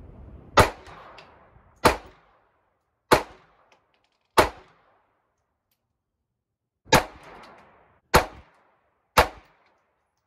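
Bernardelli .25 Auto (.25 ACP) vest pistol firing seven shots: four about a second and a quarter apart, a pause of about two and a half seconds, then three more about a second apart. It fires each round with its replacement reproduction firing pin.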